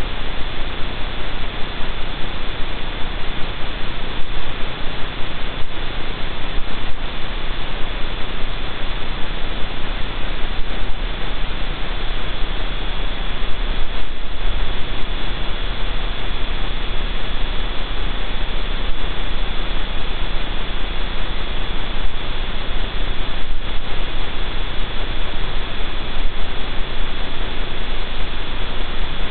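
Steady static hiss with an electrical hum and a thin, high steady whine: electronic noise in an outdoor camera's audio feed. A few faint ticks sound now and then.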